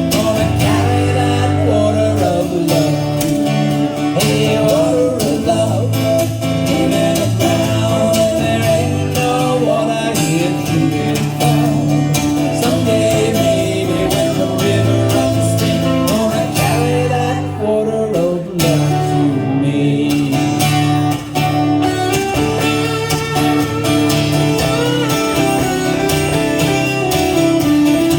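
Live band music led by guitar over a steady bass line, continuous and loud.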